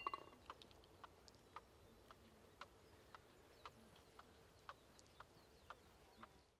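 A golf ball clicks against the cup as it is lifted out of the hole, a short clink with a brief ring, then faint, evenly spaced ticks about twice a second.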